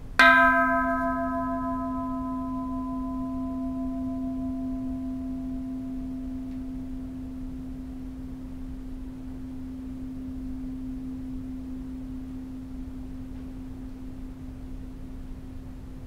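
Bronze Japanese Buddhist temple bell struck once with a wooden striker just after the start. Its higher overtones fade over the next few seconds, while one low hum rings on steadily: a long reverberation.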